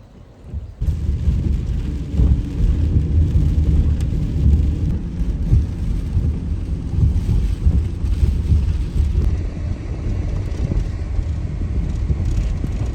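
Steady low rumble of a vehicle driving, starting abruptly about a second in.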